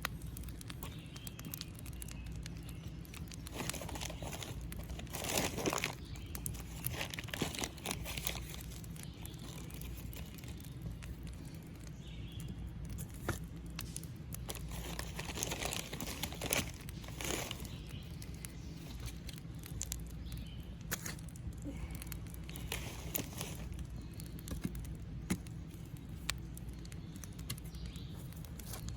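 Dry campfire tinder and kindling rustling and crinkling in bursts every few seconds, with scattered sharp snaps and crackles.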